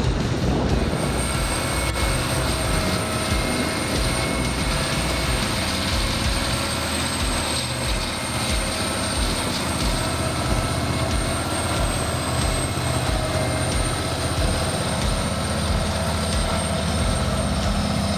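Large engine running steadily under load, with a steady high whine over a low rumble.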